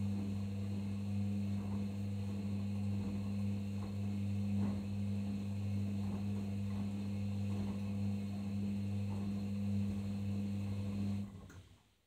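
Arçelik 5083 washing machine running on its delicates 30 programme: a steady low hum with faint irregular knocks from inside, which stops suddenly about a second before the end.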